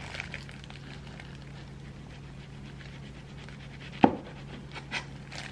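Kitchen knife cutting through a gimbap roll in soft, faint strokes over a low steady hum. A sharp knock about four seconds in, the knife meeting the cutting board.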